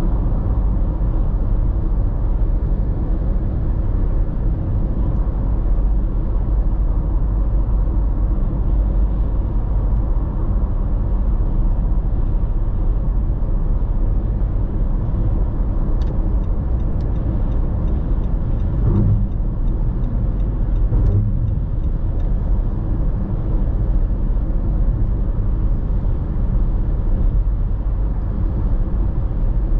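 Car cruising at motorway speed, heard from inside the cabin: a steady low rumble of tyre, road and engine noise. Two brief low thumps come about two-thirds of the way through.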